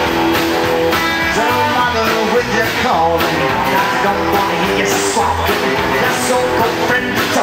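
Live rock-and-roll band playing: electric guitar, acoustic guitar, upright double bass and drums.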